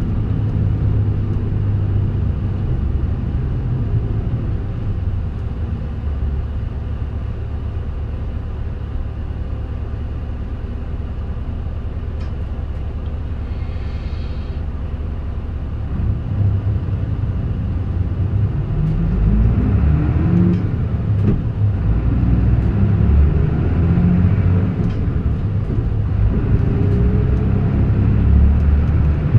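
Diesel engine of a Mitsubishi Fuso KK-MK27HM midi bus heard from inside the bus, running steadily at low revs, then getting louder about halfway through as the bus pulls away, with the engine note rising twice as it accelerates through the gears.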